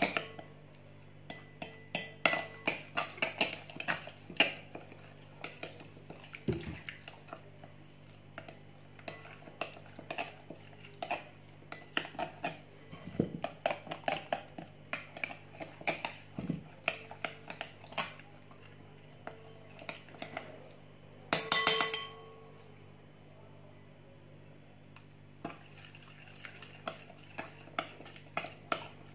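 Spoon clinking and scraping against a glass mixing bowl while stirring a wet spice marinade, in quick irregular taps. A louder burst of ringing clinks comes about three quarters of the way through.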